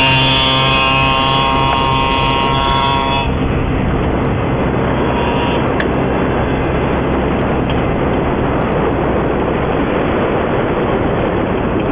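A motorcycle engine held at steady revs for about three seconds, then an even rushing noise with no clear engine note.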